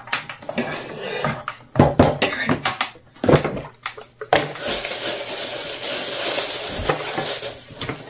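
Clicks and knocks as the latched lid of a plastic food storage canister is opened and set down, then about three seconds of plastic bag crinkling as a bag of flour is pulled out of the canister.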